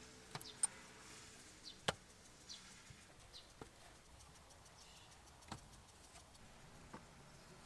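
Clips and plastic cover of a Honda Civic's air filter housing being unfastened and handled by hand: a few separate sharp clicks and knocks, the loudest about two seconds in.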